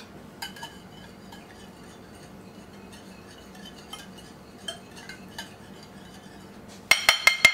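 A metal utensil stirring a liquid marinade in a glass bowl: faint scraping and light clicks, then near the end a quick run of loud, ringing clinks of metal against glass.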